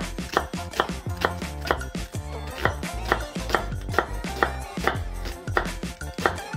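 Kitchen knife cutting down through a half onion and tapping a wooden cutting board, cut after cut, over background music.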